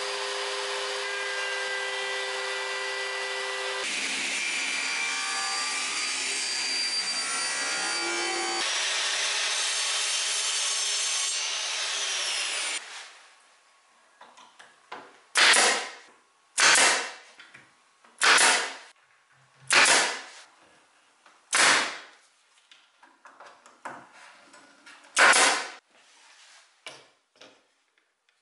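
A router table running and cutting a profile into a wooden strip, a steady high-pitched machine noise that changes abruptly twice before stopping about thirteen seconds in. Then a pneumatic brad nailer fires about six times, a second or two apart, each shot a sharp burst that dies away within half a second.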